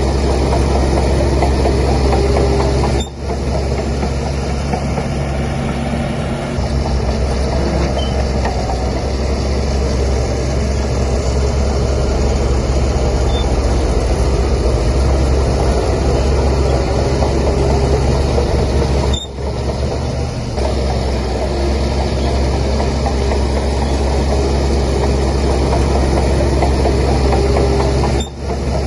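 Heavy diesel engine of a Shantui DH17C3 bulldozer running steadily under load, a deep continuous drone, broken by three brief dips where the sound drops for a moment.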